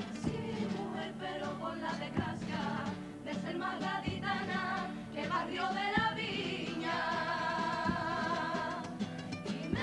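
Carnival comparsa chorus singing in multi-part harmony to guitar accompaniment, settling near the end into a long held chord with vibrato.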